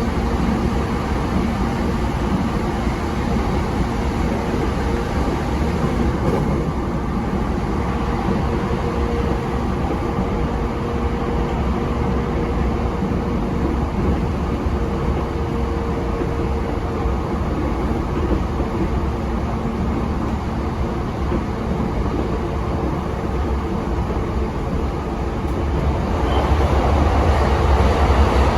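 E233-7000 series electric train running on the line, a steady rumble of wheels on rail with a faint steady hum, getting louder about three-quarters of the way through.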